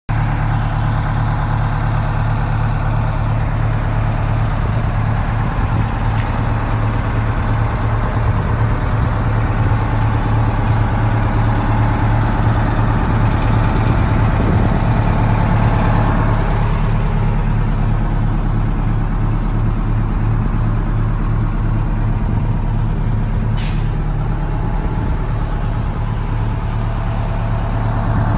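1977 American LaFrance Century Series fire engine idling steadily. Two brief sharp hisses of air come through, about six seconds in and again about twenty-four seconds in.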